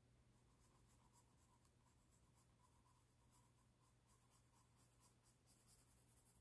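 Faint scratching of sketching: many short strokes of a drawing tool across a drawing surface, coming thicker in the second half, over a low steady hum.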